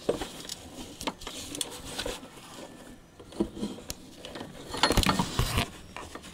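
Scattered metal clicks and knocks from a wrench and fittings being handled at the air-conditioning compressor, with a louder burst of clattering about five seconds in.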